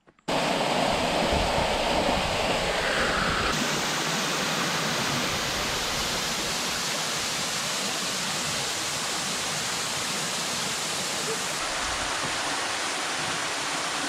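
Waterfall: a steady rush of water falling down a rock face, beginning suddenly just after the start.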